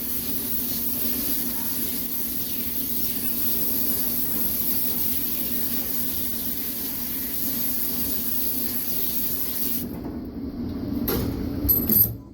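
Steady hiss of a water spray hitting a USB computer keyboard, cutting off about ten seconds in, followed by a few short knocks.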